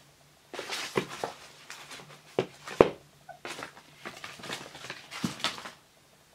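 A gift package being handled and opened: irregular bursts of rustling and crinkling, with a few sharp clicks.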